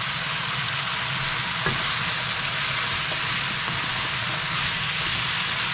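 Sliced chayote sizzling in hot oil in a frying pan, a steady hiss, with a single light knock about a second and a half in.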